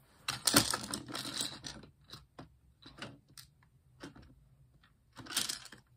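Plastic LEGO bricks being handled and pressed together: a scraping, crunching rustle lasting over a second from about half a second in, a few light clicks, and another short rustle near the end.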